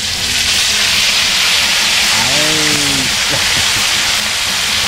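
Small tilapia going into a pot of hot frying oil, setting off a sudden loud, steady sizzle.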